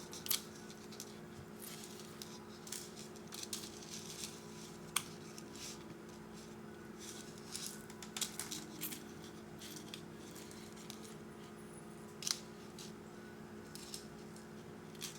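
Fine metal necklace chain being worked loose by hand to free its tangles: irregular light clicks and rattles of the links, a few sharper clicks among them.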